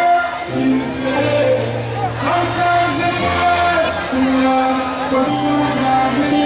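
Live band music: held chords over a steady bass line with regular cymbal hits, and singing over it.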